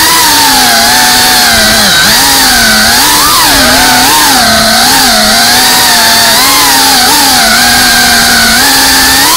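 FPV racing quadcopter's brushless motors and propellers whining. The pitch rises and falls every second or so as the throttle changes, with a sharp dip about two seconds in.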